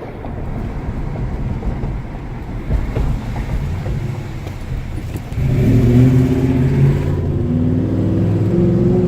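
Ford Crown Victoria Police Interceptor's 4.6-litre V8 running hard at high revs in a low gear, heard from inside the cabin, rough from a misfire. The transmission, run dry of fluid, won't upshift and the engine is held near the rev limiter. About five seconds in it gets louder and settles into a steadier droning note.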